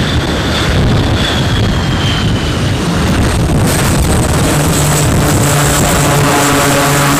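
Loud aircraft engine noise on a carrier flight deck. In the first part a high whine slowly falls in pitch. About three and a half seconds in the sound changes to a steady high whine over a low, even engine hum as an aircraft taxis under a director's signals.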